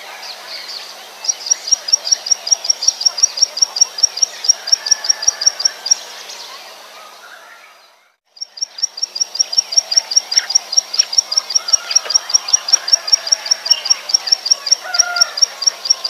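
Plain prinia singing a long, fast series of identical high notes, about five a second, over faint background bird and insect sounds. Near the middle the series fades out to a brief silence, then starts again at the same rate.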